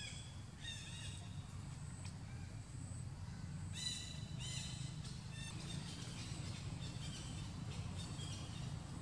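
Short animal calls in the background, a couple near the start, the loudest pair around four seconds in and fainter ones later, over a steady low outdoor rumble.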